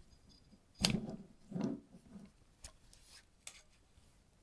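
A few sharp clicks and soft knocks of metal paintball-marker parts being handled as the freshly O-ringed assembly is pushed into the marker body, the loudest about a second in, then a few small ticks.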